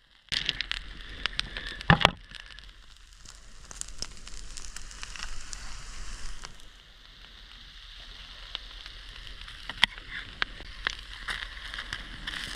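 Driftwood campfire crackling and popping, with one loud pop about two seconds in. A steady hiss runs under the crackles for the first half, then drops away.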